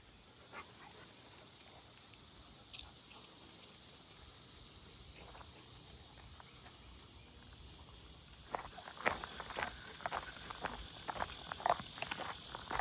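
Faint outdoor quiet with a steady, high insect sound, like crickets. Footsteps start about eight seconds in and keep a regular walking pace.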